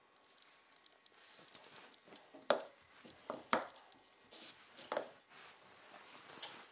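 Faint handling of pine blocks on a rubber-matted workbench: a handful of light wooden knocks and rubs as the pieces are moved and set down, the clearest ones in the middle.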